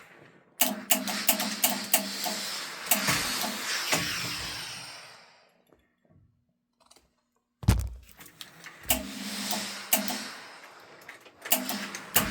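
Handling noise from an iron being worked over iron-on Velcro and shade fabric: knocks and clicks over a hiss that dies away about five seconds in. A brief pause follows, then a sudden low thump and more clicking and rustling.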